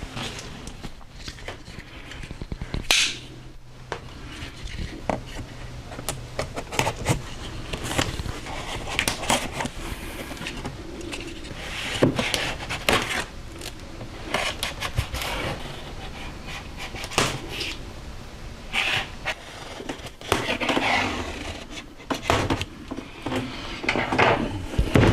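Large cardboard box being cut open at its seals and handled: cardboard scraping and rustling, with scattered sharp clicks and knocks throughout.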